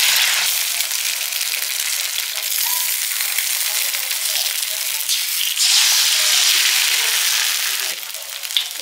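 Food sizzling and frying in a hot pan: a steady, crackling hiss that shifts abruptly in level a few times.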